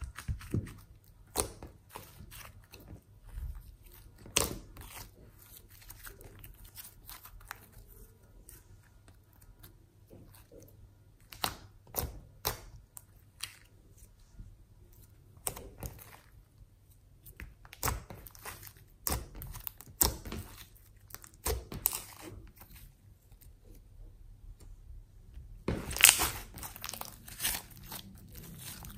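Hands squishing, stretching and pressing thick glossy slime, making irregular sticky clicks and pops. A denser, louder run of crackling pops comes near the end.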